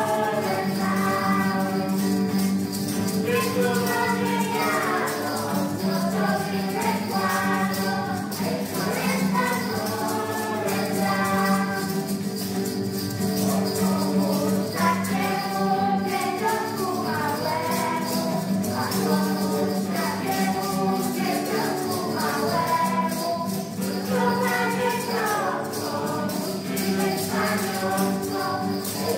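A mixed group of children and adults singing together to a strummed acoustic guitar, with a tambourine and maracas shaking along in rhythm.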